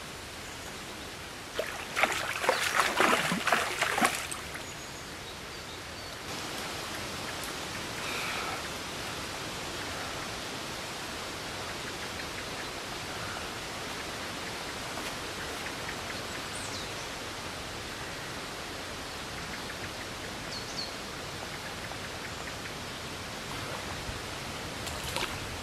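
Water splashing hard for about two seconds as a hooked fish thrashes at the surface while being landed. After it comes a steady outdoor hiss of moving water.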